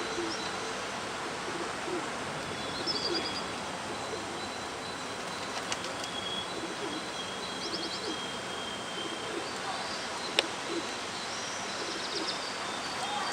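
Pigeons cooing softly over a steady background hiss, with a few high chirps from small birds and a single sharp click about ten seconds in.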